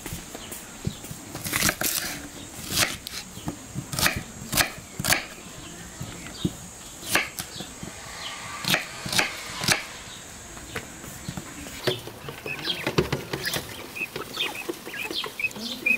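Kitchen knife chopping onion on a wooden cutting board: irregular sharp knocks of the blade hitting the board. About twelve seconds in, the chopping stops and a flock of white guinea fowl is heard calling with short high chirps.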